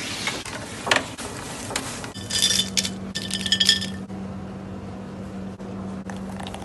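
Kitchenware clinking: a few sharp knocks, then a quick run of ringing clinks about two seconds in, over a low steady hum.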